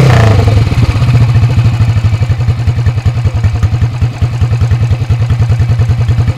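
CCM 600cc four-stroke single running through a straight-through open pipe. Revs fall away from a throttle blip in the first half second, then it idles with evenly spaced exhaust beats.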